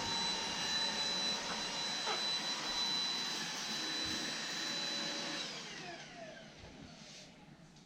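Dibea C17 cordless stick vacuum running on max power with a steady high motor whine. About five and a half seconds in it is switched off and the motor whine winds down.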